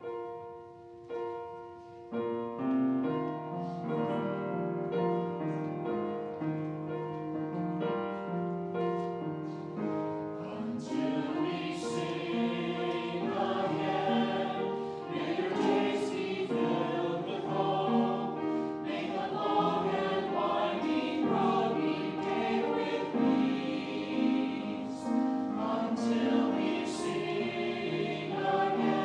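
Choir singing a sacred piece with accompaniment. The music opens with a few separate notes and fills out about two seconds in.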